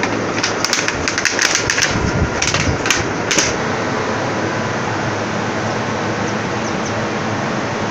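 A plastic bottle crackling and clicking in a dog's teeth in a quick irregular run over the first three and a half seconds, over a steady hiss.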